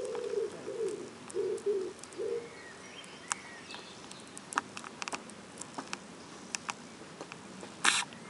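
A dove cooing a run of low notes for the first two seconds or so, then scattered sharp clicks of a tortoise's beak as it munches banana. Near the end comes one short, loud hissing puff: the tortoise sneezing.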